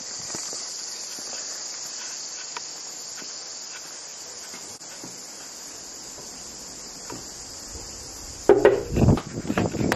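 Steady high-pitched insect chorus. About eight and a half seconds in, a quick run of loud knocks, which fit knuckles rapping on a metal security screen door.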